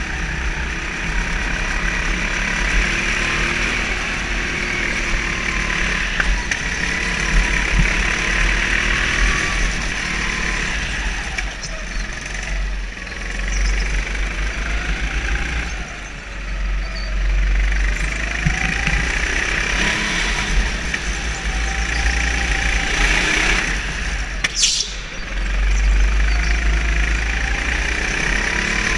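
Go-kart engine heard from onboard while lapping, its pitch rising and falling again and again as the kart accelerates out of corners and lifts off into them, over a heavy low rumble. A brief, sharp high-pitched noise cuts through about 25 seconds in.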